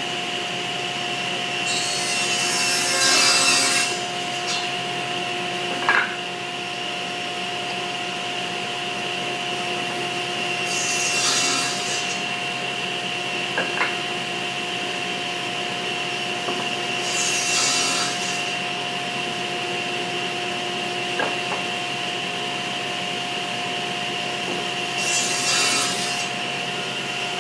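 SawStop table saw running with its steady whine while a board is pushed across the spinning blade at an angle to cut a cove. The blade bites into the wood in four separate passes, each a short rush of cutting noise, with a few light knocks in between.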